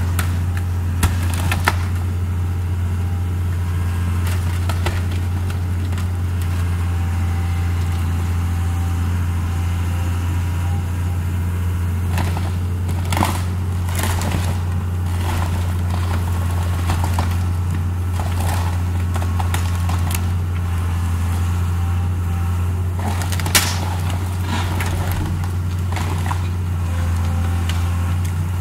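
Caterpillar tracked excavator's diesel engine running steadily while its arm and bucket tear into the wooden barn, with occasional sharp cracks of breaking timber, bunched about halfway through and again near the end.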